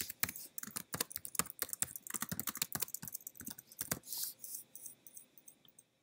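Typing on a computer keyboard: a quick, uneven run of key clicks for about four seconds, then a few scattered fainter clicks that trail off.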